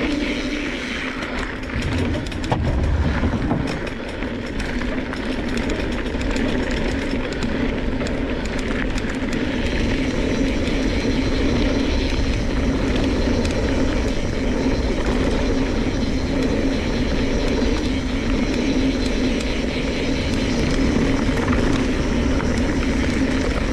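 Mountain bike rolling down a dirt and gravel trail: knobby tyres crunching and rumbling over the loose surface, with wind rushing over the handlebar-mounted camera's microphone and a steady hum. A few knocks from the bike jolting over bumps about two to three seconds in.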